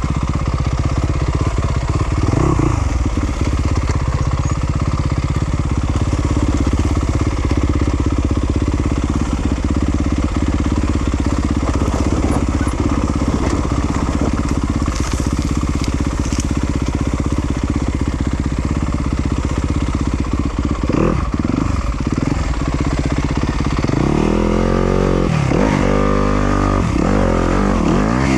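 Yamaha YZ250FX 250cc four-stroke single-cylinder dirt bike engine, running steadily at low revs, then from near the end revved up and down in quick repeated throttle blips.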